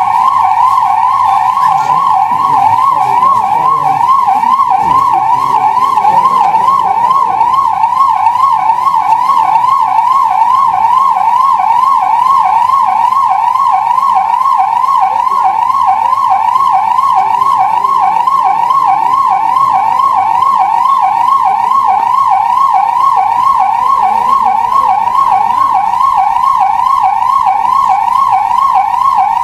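Ambulance siren sounding continuously in a fast, repeating rise-and-fall sweep, about three sweeps a second.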